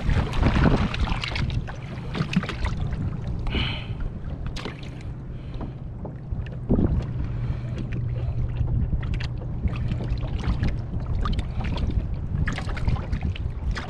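Wind buffeting the microphone over water lapping against a small boat's hull, with scattered light clicks and taps as fishing line and hooks are handled.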